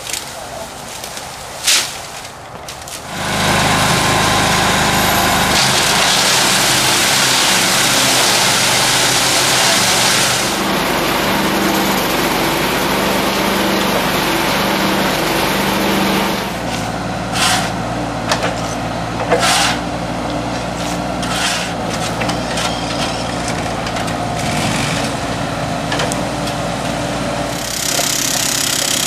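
Mini excavator's diesel engine running, rising to a loud steady run about three seconds in and easing somewhat past the middle. Sharp knocks and cracks a few seconds after that, as the bucket tears bamboo root clumps out of the ground.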